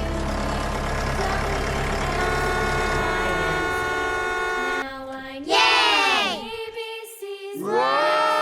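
Steady vehicle engine hum under sustained held tones, which stops about five seconds in. It gives way to two loud swooping glides that rise and then fall in pitch.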